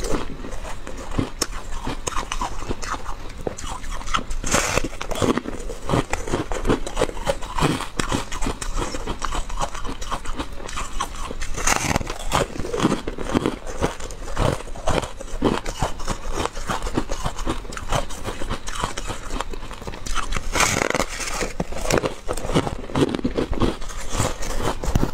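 Biting and crunching chunks of a frozen yellow ice slab, with a dense run of crackling chews and a few louder bites spread through.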